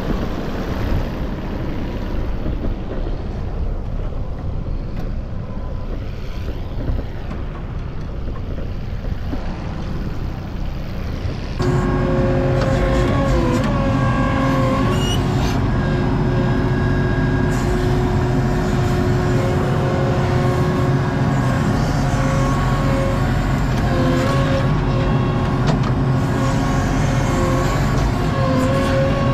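Heavy diesel engine running steadily. About twelve seconds in the sound jumps abruptly louder, into a closer, steady pitched engine drone with brief slight changes in pitch.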